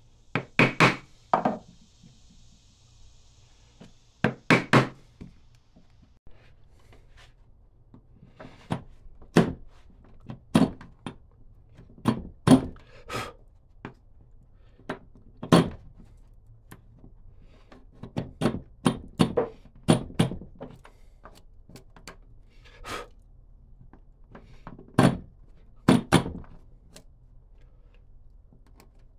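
Irregular sharp knocks and thunks from hand-tool woodworking, coming singly and in quick pairs and threes with pauses of one to several seconds between them.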